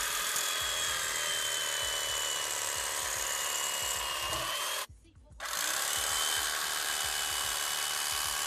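Electric carving knife running as it saws through a baked turkey breast: a steady high-pitched motor whine with a buzz. It cuts out for about half a second roughly five seconds in, then starts up again.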